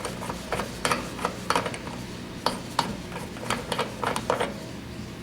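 Hand tools clicking and clinking against the brass service (king) valves of a heat pump's outdoor unit, a string of irregular sharp metallic clicks as the valves are opened up and loosened to get ready to pump the refrigerant down.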